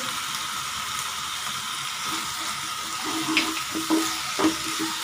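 Chopped onions sizzling steadily in hot oil in a stone-coated wok. From about two seconds in, a wooden spatula stirs and scrapes through them in short strokes.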